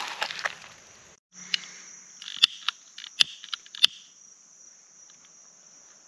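Crickets trilling in a steady, high-pitched band, with a handful of sharp taps between about one and a half and four seconds in. Over the first second there is a noisy clatter that cuts off abruptly.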